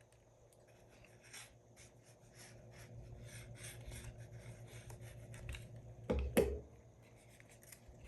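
Glue being rubbed onto a folded paper page, a run of faint scratchy rubbing strokes against the paper. A louder knock or handling bump comes about six seconds in.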